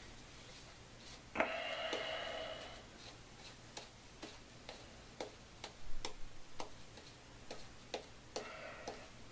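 Silver-tip badger shaving brush working lather over a beard and neck: a run of short crisp ticks about two a second as the bristles stroke the skin, with a longer, louder brushing stretch about a second and a half in and another near the end.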